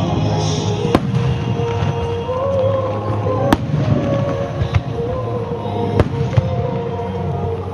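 Fireworks bursting with sharp bangs every second or two over music with a melody line and a steady low rumble.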